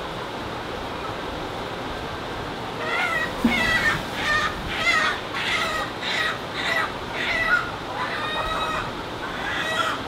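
Caged brown laying hens calling, a string of short drawn-out clucks about two a second starting some three seconds in, over a steady rushing background noise.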